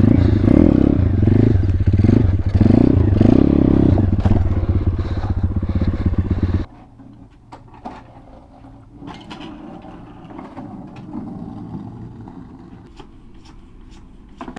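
Single-cylinder four-stroke pit bike engine (Thumpstar 140cc) running loud and being blipped and revved unevenly, then cutting off abruptly about six and a half seconds in, leaving only quiet background with a few small clicks.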